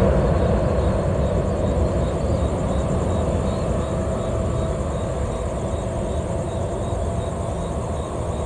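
Delta Airbus A321-200's jet engines running at low power on the runway as the airliner turns, a steady rumble with a steady whine that slowly fades. Insects chirp faintly and evenly in the background.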